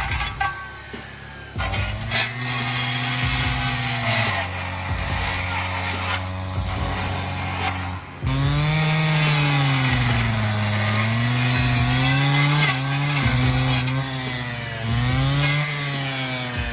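Engine-driven stump-cutting tool working into a fire-scorched stump. Its engine pitch sags and recovers again and again as it takes load, with a short break about eight seconds in.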